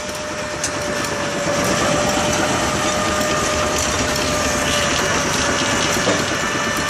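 Steam-powered sawmill running: a steady mechanical din with a constant whine over it and a couple of light knocks.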